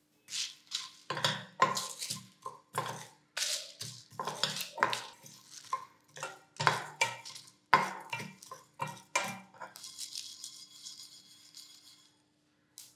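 Wooden spatula stirring whole spices, mostly coriander seeds, around a stainless steel frying pan as they dry-roast: a run of irregular scraping and rattling strokes. Near the end they give way to a steady high hiss lasting about two seconds.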